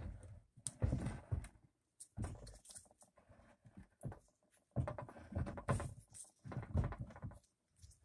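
A large rock being handled and shifted about on a wooden tabletop by a gloved hand: irregular scraping, rubbing and light knocks in several short spells.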